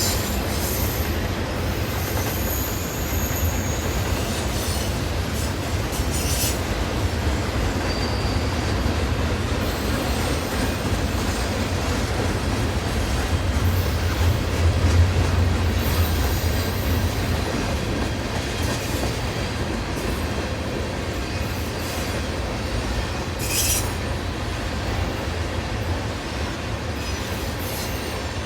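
A freight train rolling past, its cars giving a steady heavy rumble with wheel clatter. Brief high-pitched wheel squeals come through several times: at the start, around six seconds in, and again near the end.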